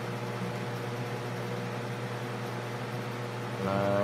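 Steady low machine hum with a light hiss, like a running room fan or air conditioner. A man's voice speaks one short word near the end.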